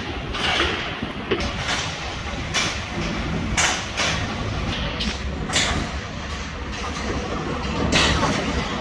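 Dry-dock shipyard noise: a steady low machinery rumble with short hissing bursts at irregular intervals.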